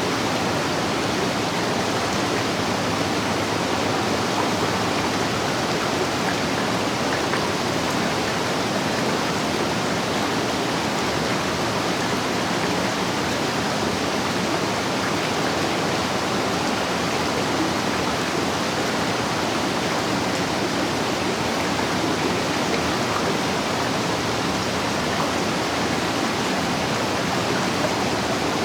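Waterfall: falling water rushing and splashing in a steady, unbroken roar of noise.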